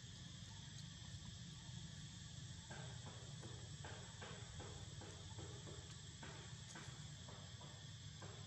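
Steady chorus of insects, a constant high drone over a low rumble, with no voices. From about three seconds in, faint irregular clicks come through at uneven intervals.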